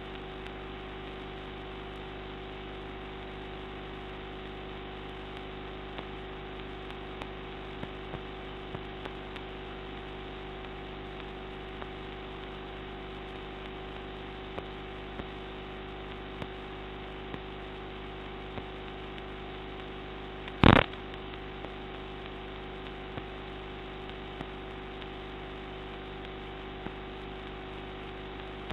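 Steady hiss and electrical hum of a quiet room's recording, with faint scattered ticks. About twenty seconds in there is a single very short, loud sharp sound.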